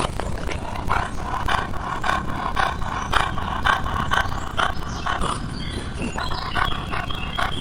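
An animal calling in a quick run of short, evenly spaced calls, about three a second, over a steady low rumble.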